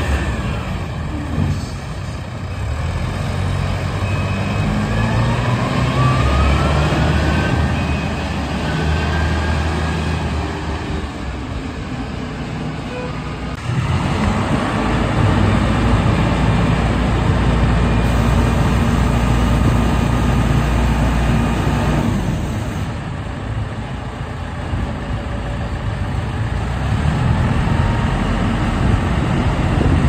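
A 3.5 cubic-metre self-loading concrete mixer's diesel engine running steadily as the machine is driven and manoeuvred. A whine rises in pitch a couple of seconds in. The engine sound shifts abruptly twice.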